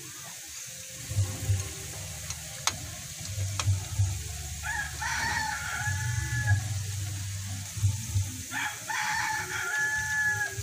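A rooster crows twice, about five and nine seconds in, each a long held call, over the steady sizzle of bananas deep-frying in hot oil. A few sharp clicks of the spatula against the pan come before the first crow.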